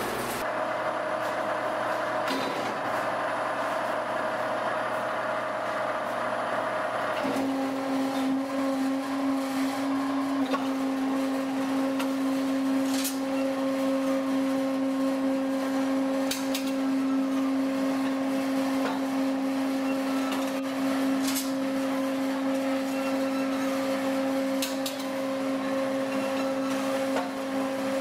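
Noodle-making machine running, its rollers and cutter turning out noodle strands with a steady motor hum. About seven seconds in the hum changes to a lower, stronger tone, with a few faint clicks after that.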